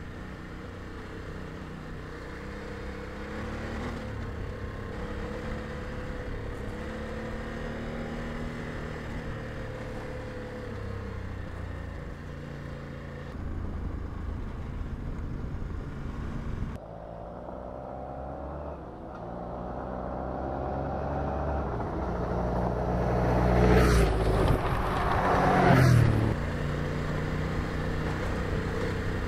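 Motorcycle engine running while under way on a dirt track, its pitch rising and falling with the throttle, with two louder surges near the end.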